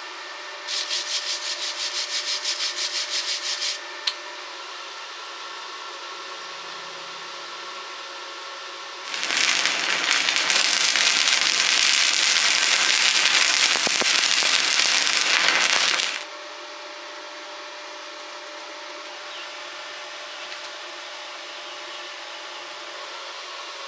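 Rapid scraping strokes for about three seconds, then a loud, steady crackling hiss from a stick-welding arc for about seven seconds, which starts and stops abruptly. A faint steady hum runs underneath.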